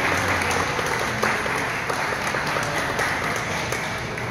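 A small group of listeners applauding with hand claps, the clapping easing off slightly toward the end.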